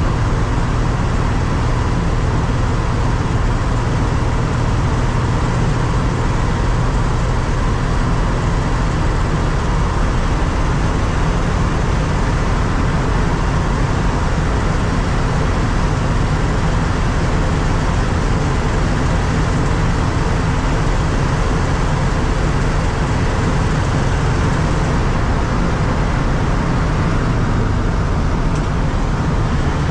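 A 1987 Ford F-150's 300 cubic-inch inline-six engine running steadily while the truck drives, with road noise. The engine note drops a little near the end.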